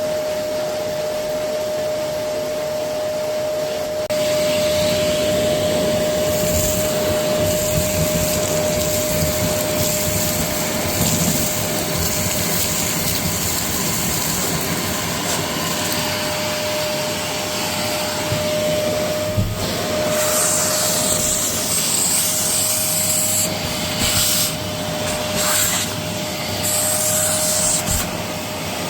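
Goblin Essentials cylinder bagless vacuum cleaner running with a steady motor whine. It gets louder about four seconds in, and there are brief spells of higher hissing near the end.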